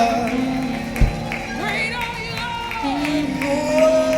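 Live church worship music: a band plays under voices singing in long, gliding phrases, with a low drum beat about a second in.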